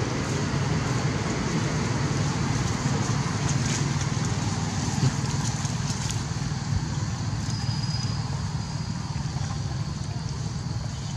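Steady outdoor background noise: a low rumble with a high hiss above it, and a thin high whistle for about a second and a half near the middle.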